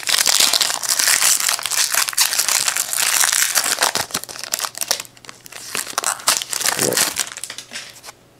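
Foil trading-card pack wrapper being torn open and crinkled, with loud, dense crackling for about five seconds. Then quieter rustling as the cards are handled.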